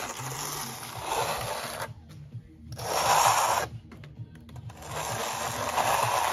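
Steel plastering trowel scraping over wet cement render in three long strokes, with short pauses between them.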